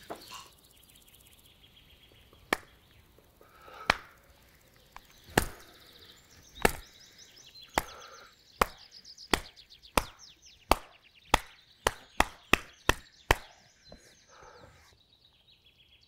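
A series of about fifteen sharp knocks, slow at first, about one every second and a half, then quickening to about three a second before stopping.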